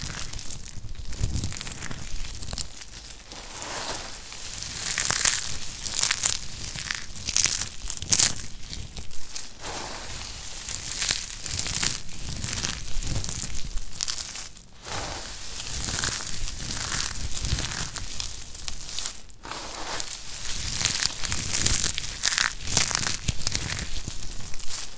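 A heap of small dry soap cubes crunching and crumbling as hands squeeze and rake through handfuls of them, in repeated uneven surges.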